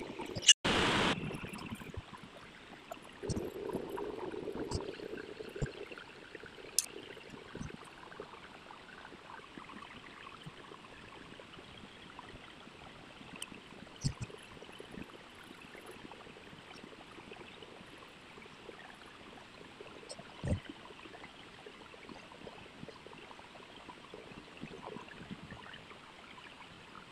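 Colour pencil scratching across paper as an area is shaded in, a steady soft hiss. A loud brief noise burst comes about a second in, and there are a few faint knocks later on.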